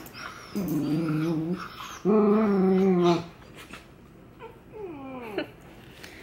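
Puppies play-wrestling, whining and growling: two drawn-out calls in the first half, then a whine that falls sharply in pitch about five seconds in.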